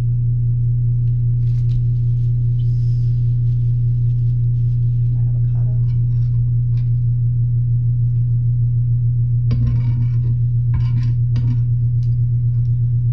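A loud, steady low electrical hum with a stack of overtones, running unchanged throughout. A few faint, brief sounds, such as small kitchen clinks, come through about two-thirds of the way in.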